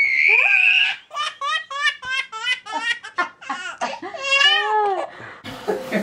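A baby laughing: one long high-pitched shriek of laughter, then a quick run of giggles, about four a second, ending in a longer drawn-out laugh.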